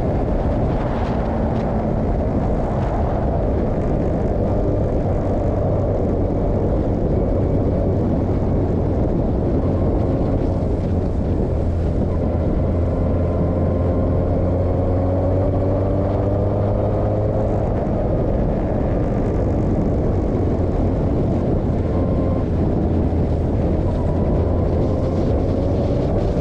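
Formula 2000 open-wheel race car's engine running hard under a heavy wind rush, its pitch climbing steadily and dropping back several times as it pulls through the gears.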